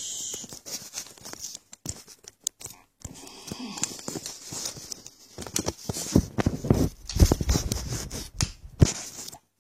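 Irregular small clicks, taps and scrapes of a lock and metal picking tools being handled, with brief pauses about three seconds in and near the end.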